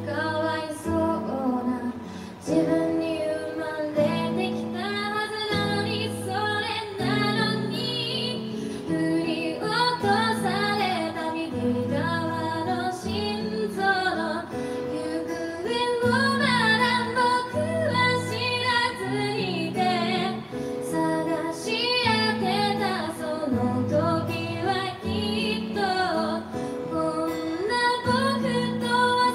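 A woman singing in Japanese to her own acoustic guitar accompaniment, recorded live.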